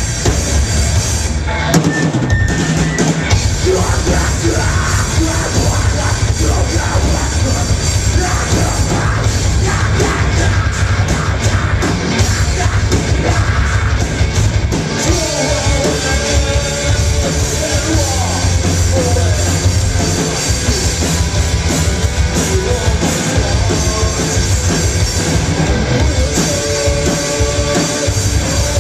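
Live rock band playing loudly and without a break: electric guitars, bass and a drum kit, with keyboard, heard through the PA from within the crowd.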